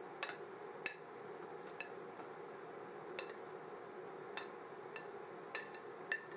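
Thick curry sauce with chicken simmering in a saucepan while a metal utensil stirs it. Sporadic sharp clinks and small pops come about once a second over a faint steady hum.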